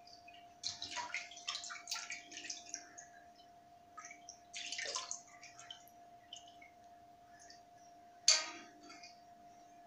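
Water splashing and dripping in bursts as small brass vessels are washed and rinsed by hand in basins, with a louder sudden splash about eight seconds in. A faint steady hum lies underneath.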